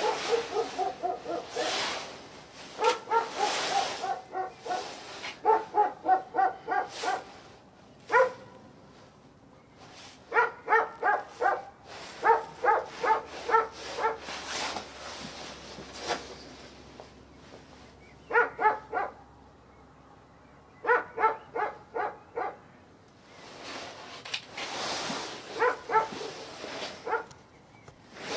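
A dog barking in quick runs of short barks, about four a second, bout after bout with pauses between. A rushing hiss is also heard at the start and again near the end.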